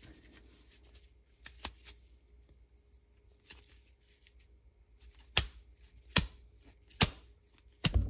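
Webbing straps joined by a J-hook being jerked hard and snapping taut, a dynamic load test of the hook. Faint rustling and handling of the straps at first, then four sharp snaps under a second apart in the second half. The hook holds without giving way.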